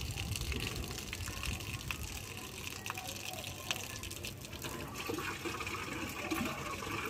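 Water running steadily from a hose into a concrete trough, filling it.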